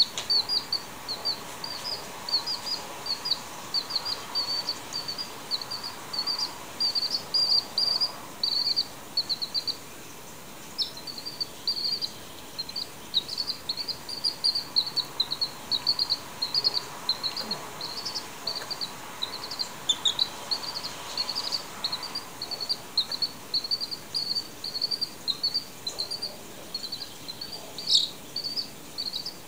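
A domestic chicken chick peeping continuously in short, high cheeps, several a second, with a brief break about ten seconds in.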